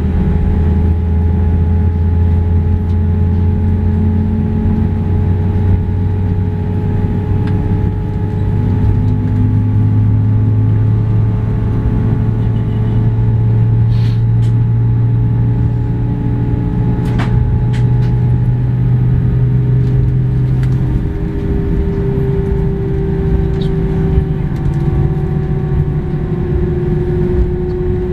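Airbus A319 cabin noise from a window seat over the wing while taxiing: the engines running steadily at low power, a loud low drone that slowly creeps up in pitch and drops away about two-thirds of the way through, over a steady higher hum. A few faint clicks.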